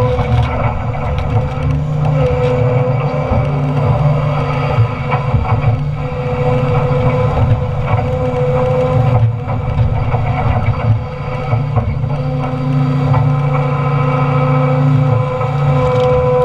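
Doosan Solar 255 LC-V excavator's diesel engine working under load, with a hydraulic whine that comes and goes as the shear is worked. Short cracks and snaps of timber being split by the hydraulic shear.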